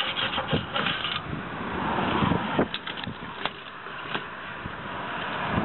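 Keys rattling and a key being fitted into the lock of a metal community mailbox door, with several sharp metallic clicks in the middle.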